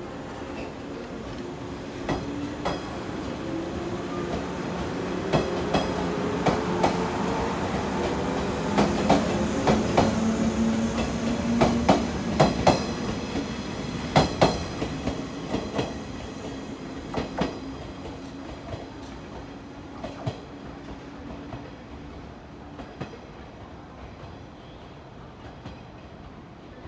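JR West Series 113 (5700 subseries) electric train, resistance-controlled with MT54 traction motors, pulling out and accelerating past. The motor whine rises in pitch as it gathers speed, and the wheels clack over rail joints, loudest about halfway through. The sound then fades as the train draws away.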